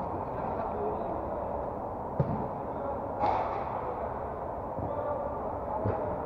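Football being kicked during five-a-side play: a sharp thud about two seconds in, a louder, brighter smack a second later, and another thud near the end, over a steady background hiss.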